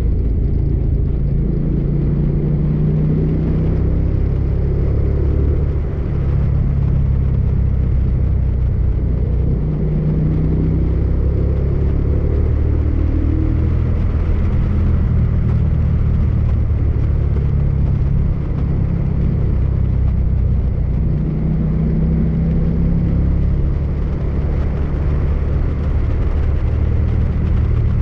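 Motorcycle engine running at cruising speed, its pitch rising and falling a little with the throttle, over a steady rush of wind and road noise.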